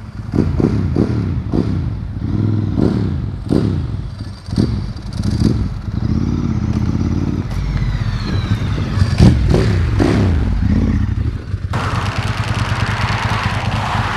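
Ducati 996 V-twin through a Sil-Motor aftermarket exhaust, blipped about ten times in quick succession, each rev rising and falling sharply, then accelerating with a rising pitch as the bike rides up. Near the end the sound changes abruptly to a steadier, noisier engine sound.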